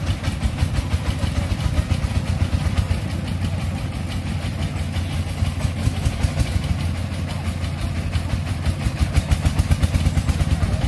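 Công nông farm truck's single-cylinder diesel engine running with a rapid, even chugging, the beats growing stronger about nine seconds in.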